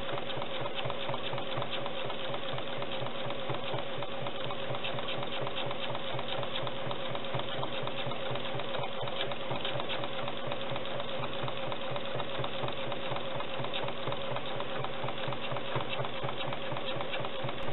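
Domestic sewing machine running steadily, free-motion quilting through a quilt sandwich: a rapid, even stitching chatter over a steady hum.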